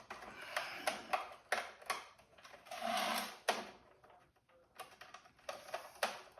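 Screwdriver driving a screw into a CPU heatsink's bracket: a run of small irregular clicks and metal-on-metal scrapes, with a longer rasping scrape about three seconds in.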